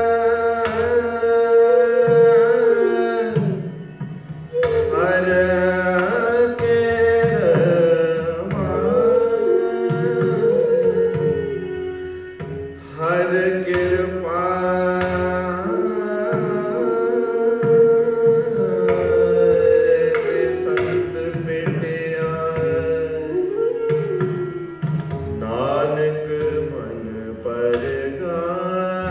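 Sikh raag kirtan: a bansuri flute and a tar shehnai play a slow, gliding melody over jori drums.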